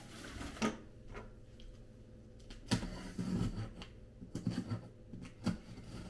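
Large cardboard carton being shifted and handled on a countertop: a scattered series of knocks, taps and scuffs, the loudest a little under three seconds in.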